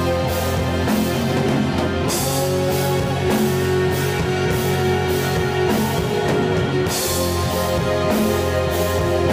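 Doom metal band rehearsing, recorded through a phone microphone: electric guitar holds sustained chords over bass and drum kit, with cymbal crashes about two seconds in and again around seven seconds.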